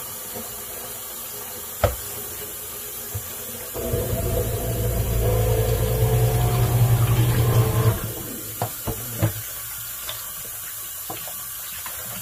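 Water running and splashing into a stainless steel kitchen sink while raw chicken is rinsed in a plastic bowl. The rush is loudest from about four to eight seconds in. There is a sharp knock about two seconds in and a few light knocks afterward.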